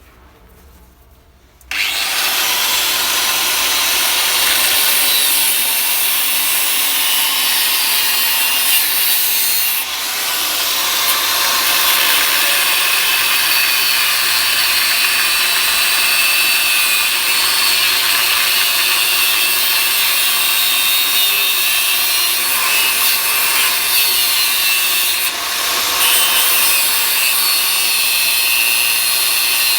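A power cutting tool starts abruptly about two seconds in and runs steadily, cutting through old galvanised iron (GI) water pipe, with a high, ringing metallic edge; the sound eases off briefly twice, around ten and twenty-five seconds in.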